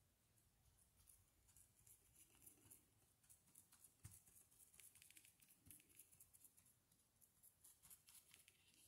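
Faint, quick, irregular taps and scratches of a paintbrush dabbing dots of paint onto a canvas, with a soft knock about four seconds in.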